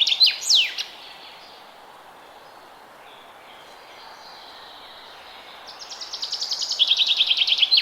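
A songbird singing in a forest: a fast trill of repeated high notes that steps down in pitch, ending in two quick downward-sweeping notes. The song ends just under a second in and starts again about six seconds in, over a steady background hiss.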